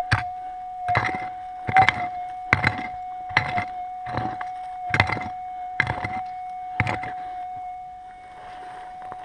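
Metal detector's steady threshold hum, with dull digging strikes into the ground about once every 0.8 seconds as the target is dug out; the strikes stop about seven seconds in and only the hum remains.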